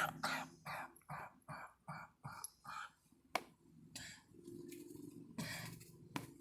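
A girl coughing on cigarette smoke: a run of about seven short coughs in quick succession that die away, followed by a sharp click and a few softer coughs or breaths.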